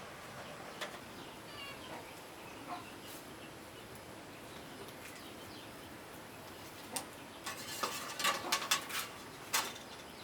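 A quick run of sharp clicks and light knocks in the last three seconds, over a faint background with a few soft chirps about two seconds in.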